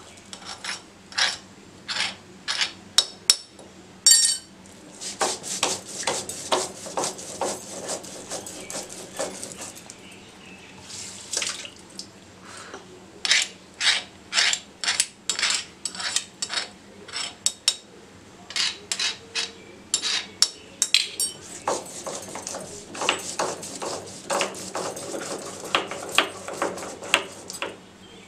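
A stone grinding roller (nora) is worked back and forth on a flat stone slab (sil), grinding a wet paste. It makes a rhythmic series of scraping knocks, about two to three strokes a second, in runs with brief pauses.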